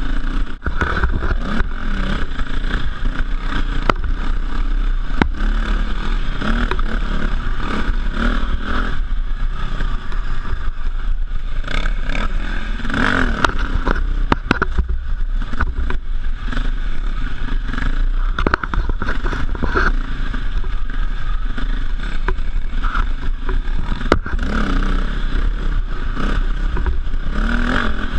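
KTM 450 EXC dirt bike's single-cylinder four-stroke engine under way on a trail ride, revs rising and falling continually with the throttle and gear changes.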